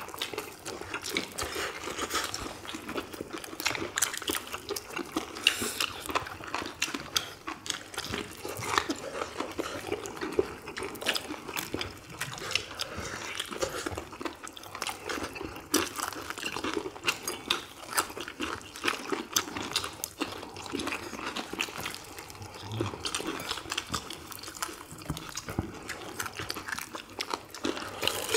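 Crispy fried chicken drumsticks being bitten and chewed: a steady run of close crunches and chewing clicks.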